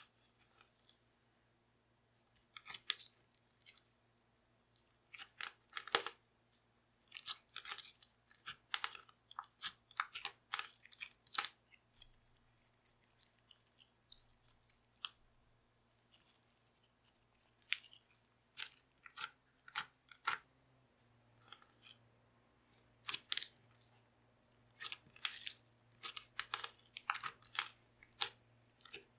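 Slime being squeezed, poked and stretched between fingers, giving irregular runs of small wet clicks and pops with short pauses between handfuls.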